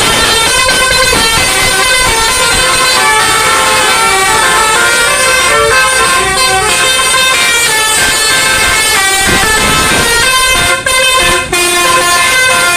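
Tour bus Basuri telolet horns playing melodies through roof-mounted trumpets, loud, the pitch jumping from note to note. There are a couple of short breaks near the end.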